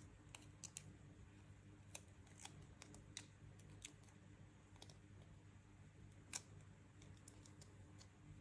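Faint, scattered clicks and taps of fingers handling a small hard-plastic toy shoe charm, one sharper click about six seconds in, over a low steady room hum.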